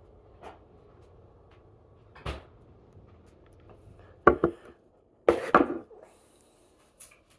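Irregular knocks and clunks of things being handled and set down, a sharp double knock about four seconds in and a louder cluster just after five seconds.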